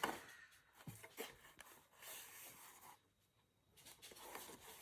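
Faint rustling and rubbing of paper card being handled and pressed down by hand, with a few light taps.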